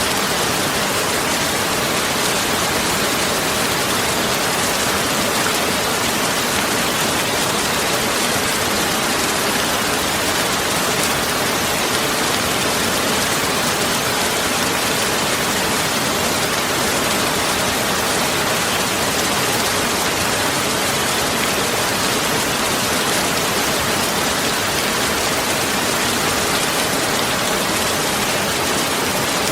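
Steady, even rushing hiss like heavy rain, with no separate drops, knocks or other events.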